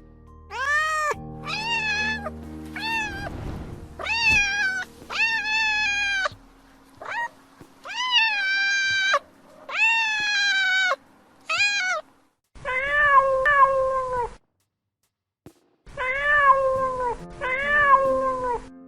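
Domestic cat meowing over and over: about a dozen separate meows, some short and some long and drawn out, most falling in pitch at the end.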